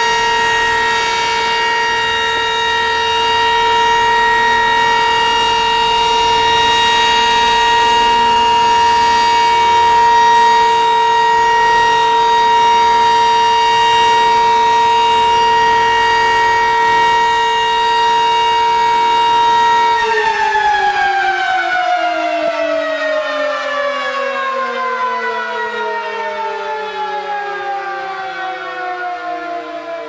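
Sentry 15V2T-B dual-tone outdoor warning siren sounding a steady alert tone, a loud chord of two pitches. About two-thirds of the way through it winds down, its pitch falling steadily as it fades.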